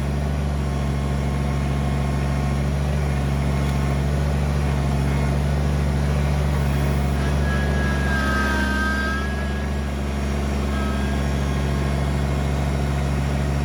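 Kubota BX23S compact tractor's three-cylinder diesel engine running steadily under work. A brief high whine sounds a little past halfway.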